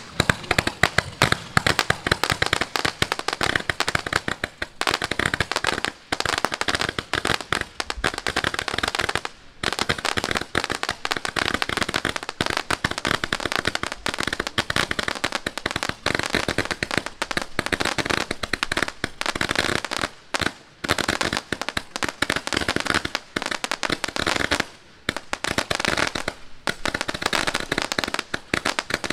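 A 380-shot roman candle firework firing in rapid succession: a dense stream of sharp launch shots, one on top of the next, with brief lulls about a third of the way in and twice later on.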